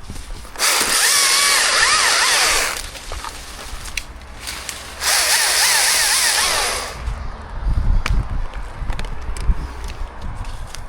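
Chainsaw cutting in two short runs of about two seconds each, its pitch wavering up and down as the chain bites into the wood. Low knocks and thuds follow near the end.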